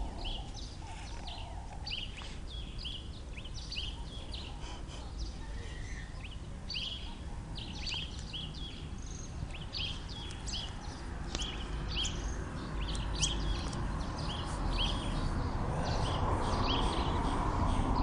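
Birds chirping in the background: a steady run of short, high chirps, each sweeping downward, coming every second or so, over a low rumble that builds toward the end.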